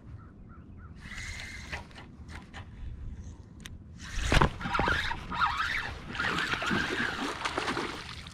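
Spinning reel being cranked to fight a hooked fish from a kayak, with faint clicks from the reel. About four seconds in a sharp thump, followed by louder rough noise.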